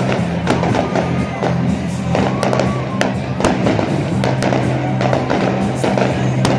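Loud music with a steady bass line, over which fireworks go off in sharp cracks and bangs several times.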